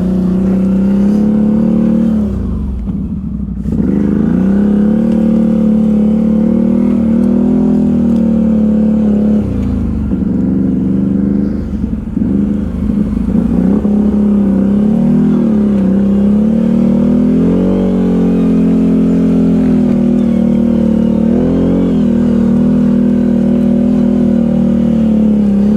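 ATV engine running under load on a trail ride, its pitch rising and falling as the throttle is opened and eased off, with a short lift off the throttle about three seconds in.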